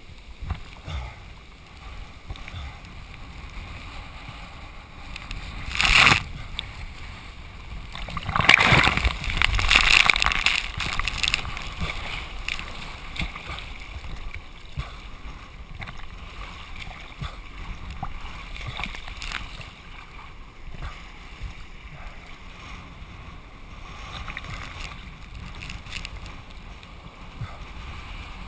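Choppy whitewater sloshing and splashing against a camera held at the water's surface, a steady rush of water. There is a sudden loud splash about six seconds in and a longer burst of splashing from about eight to eleven seconds.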